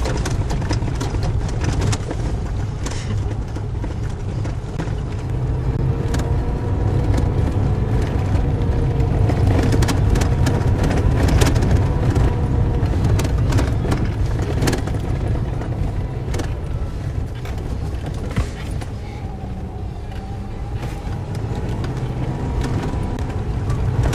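Car driving slowly on an unsealed dirt road, heard from inside the cabin: a steady low rumble of engine and tyres, with frequent sharp clicks and knocks from the rough surface.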